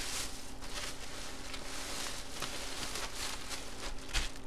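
Crinkling and rustling of plastic packaging as the break's cards are handled and unwrapped, with a couple of soft thumps near the end.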